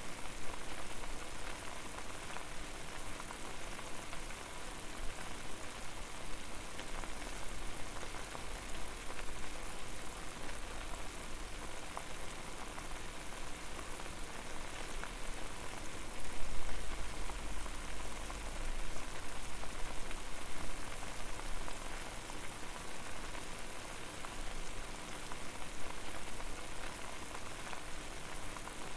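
Water boiling over a fire: a steady hiss of bubbling with many small pops and crackles. A low rumble swells for a few seconds past the middle.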